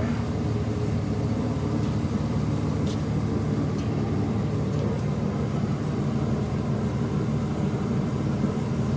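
6.4 L Power Stroke V8 turbo-diesel of a 2008 Ford F-350 idling steadily with its newly replaced twin turbochargers, running smooth and even. A faint click about three seconds in.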